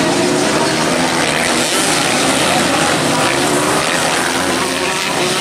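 Dirt-bike engines racing at high revs, several engine notes overlapping and wavering in pitch as the bikes accelerate and ease off.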